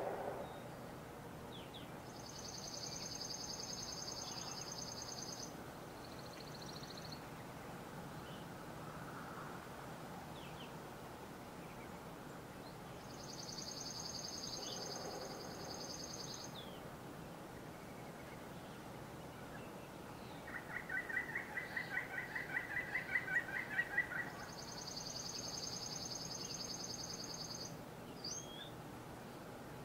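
Songbirds singing: a high, dry trill about three seconds long, sung three times roughly ten seconds apart. About two-thirds of the way through, a lower pulsing trill grows louder over about four seconds.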